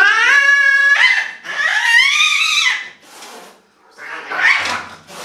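An angry domestic cat yowling while held down: two long wails, the first rising in pitch and the second rising then falling, followed by shorter, rougher sounds.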